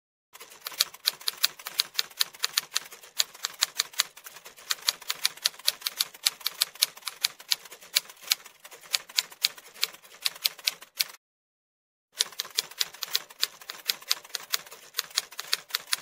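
Rapid typewriter key clicks, a typing sound effect laid over text being typed out on screen. The clicking breaks off about 11 seconds in and starts again about a second later.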